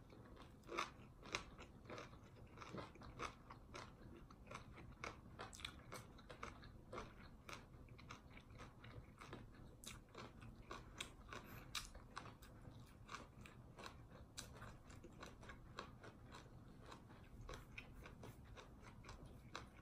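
Two people chewing mouthfuls of lime: faint, with many small irregular crunches and mouth clicks.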